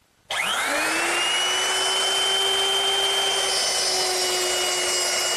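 Electric router with a 1/2-inch mortising bit switched on about a third of a second in, its whine rising quickly as the motor spins up, then running steadily at full speed while it cuts a hinge mortise into an oak door stile.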